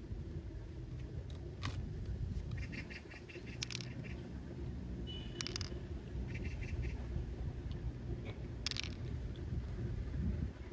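Wet handling of a freshwater pearl mussel's flesh as fingers dig inside the open shell to work pearls loose: a steady low rustling and squelching, with a few sharp clicks. Twice there is a short run of rapid high chirps.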